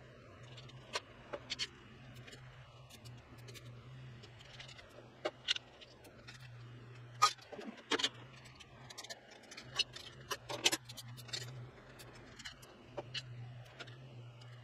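Metal hand tools and bolts clinking against motorcycle engine parts: scattered sharp metallic clicks and taps, a few louder ones about halfway through.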